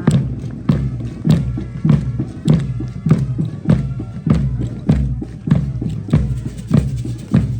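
Live band music: a bass drum strikes a steady beat a little under twice a second, with wind instruments playing held notes over it.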